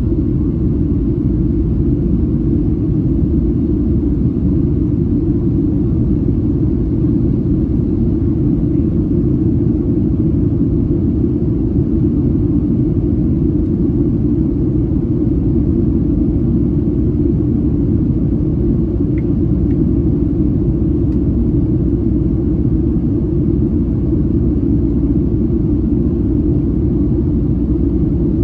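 Steady low rumble of a Boeing 737-700's CFM56 jet engines and airflow, heard inside the passenger cabin.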